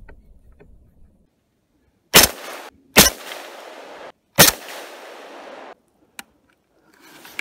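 Three shots from an AK (Kalashnikov) rifle, the first about two seconds in, the second under a second later and the third about a second and a half after that, each trailing off over about a second.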